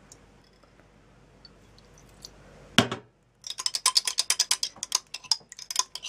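Metal teaspoon whisking egg yolk and water in a small glass jar, making the egg emulsion: quiet at first, one sharp knock of the spoon on the glass a little under halfway, then rapid clinking of spoon against glass, several clicks a second.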